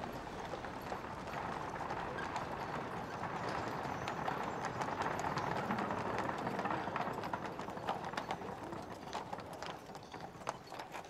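Horse hooves clip-clopping on cobblestones over a steady hiss of street noise, the hoofbeats standing out more clearly near the end as the noise fades.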